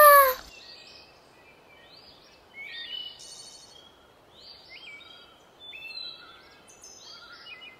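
Birds chirping, short high whistled calls with sudden jumps in pitch, coming in small groups every second or so over a faint hiss.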